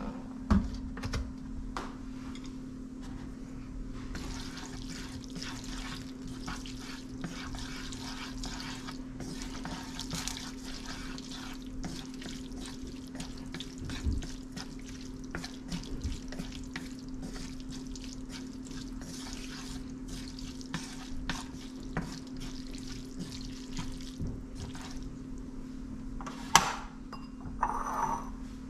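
Kitchen tap running into a sink, with scattered light knocks of dishes or utensils and a couple of sharper clinks near the end. A steady low hum runs underneath.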